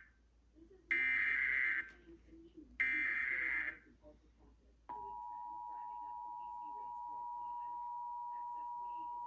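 Emergency Alert System test on a broadcast station: two harsh, buzzing bursts of SAME header data, each just under a second long and about a second apart. About five seconds in, the steady two-tone EAS attention signal starts and holds, announcing the county test message.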